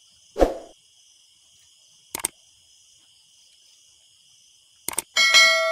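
Steady night chorus of crickets and other insects, with a short thud about half a second in and a couple of sharp clicks around two seconds. Near the end a metal object is struck with a loud clang that rings on and fades.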